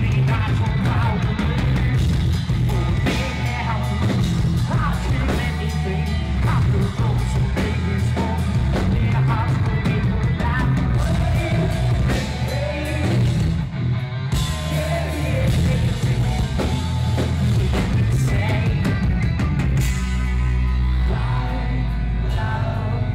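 Rock band playing live: distorted electric guitars and a drum kit, with singing over the top and a heavy, booming low end.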